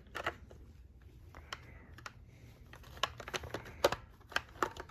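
Plastic clicks and knocks of a Wyze cordless vacuum's removable battery pack being handled and lined up to clip back onto the vacuum body, with a cluster of sharp clicks about three to four and a half seconds in.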